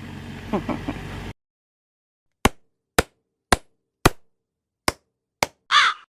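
Edited-in sound effect: six sharp knocks against dead silence, roughly half a second apart, followed near the end by two short sweeping tones.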